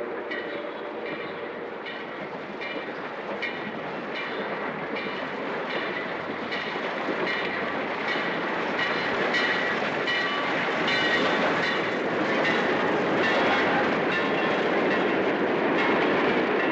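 Train rolling in, its wheels clacking over the rail joints with a metallic ring, a little more than once a second, over a steady rumble that grows gradually louder as it approaches.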